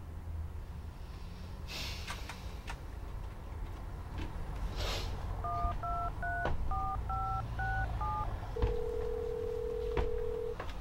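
Touch-tone phone dialing: seven quick two-tone keypad beeps, then a steady ringback tone for about two seconds as the call rings through. A few soft rustling clicks come first.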